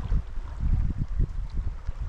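A shallow stream's riffles flowing, with wind buffeting the microphone in uneven low gusts.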